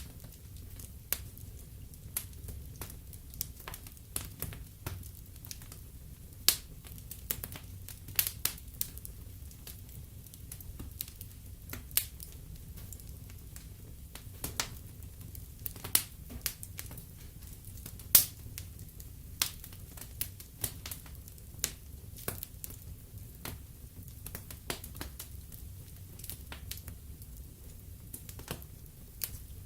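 Wood fire in a fireplace crackling, with irregular sharp pops, a few much louder than the rest, over a low steady rumble. The loudest pop comes about two-thirds of the way through.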